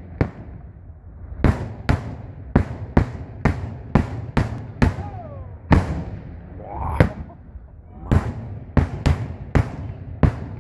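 Daytime aerial firework shells bursting overhead in rapid succession: a string of sharp bangs, roughly two a second, each with a short echoing tail, with a pause of about a second near the middle.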